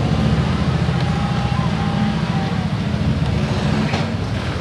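Steady low rumble of a nearby idling vehicle engine in street traffic, with one light click about four seconds in.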